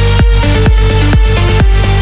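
Electronic dance music with a steady four-on-the-floor kick drum, a bit over two beats a second, under sustained synth notes.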